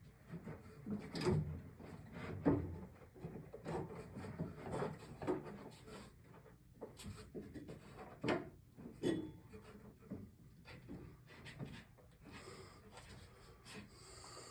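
Irregular knocks, rubs and scrapes of hand work: a PEX crimping tool and crimp ring being positioned around a fitting, with the clearest knocks about a second and a half, two and a half and eight seconds in.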